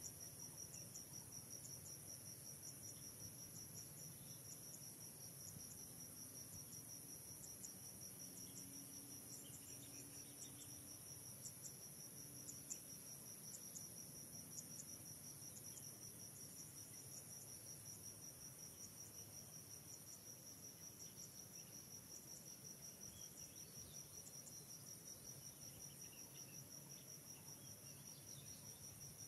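Faint, steady chorus of insects such as crickets or cicadas, a continuous high-pitched shrilling.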